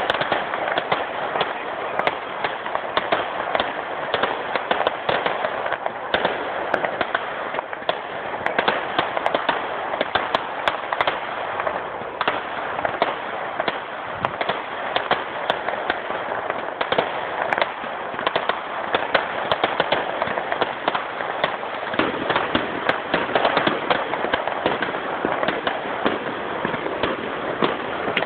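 Fireworks going off: dense, rapid crackling and popping of many small bursts, with no pause.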